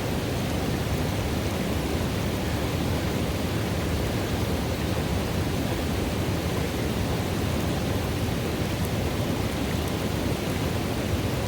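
River water running through a pool: a steady, deep rushing with no breaks.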